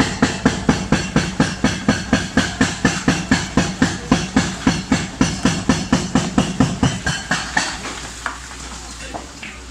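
Excavator-mounted hydraulic breaker pounding concrete, a rapid steady run of blows at about four a second that stops about seven seconds in, over a low engine rumble.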